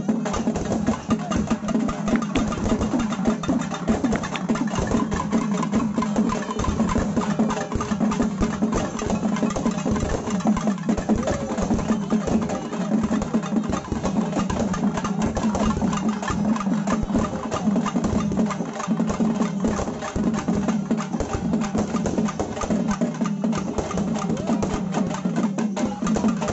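Naiyandi melam, a Tamil folk band, playing: drums beat a fast, steady rhythm with a pitched melody above them.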